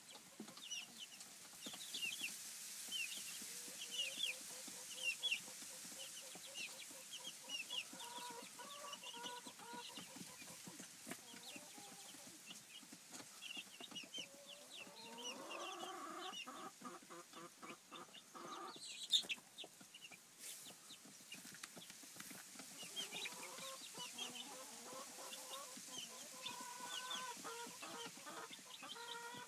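Young Rhode Island Red and Plymouth Rock chicks peeping constantly in short high cheeps, with lower clucking calls coming in spells. A single sharp click sounds a little past the middle.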